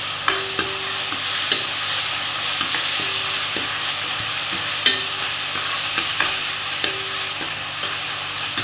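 Steel ladle stirring onions and tomatoes frying in oil in a steel kadai: a steady sizzle with irregular clinks and scrapes of the ladle against the pan, some clinks leaving a brief ring.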